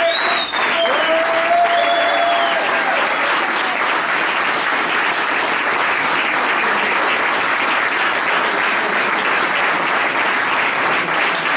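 A group of people applauding steadily, with a few calls rising over the clapping in the first three seconds.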